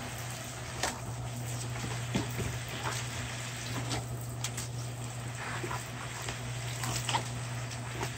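Water spray from a hose hissing steadily as it hits the grass and a dog, with a few short sharp splashes or snaps as the dog bites at the stream.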